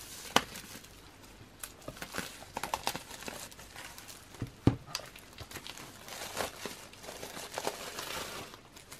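Clear plastic shrink wrap crinkling and tearing as it is peeled off a hardcover photobook. Two sharp knocks stand out, about half a second in and just before the middle.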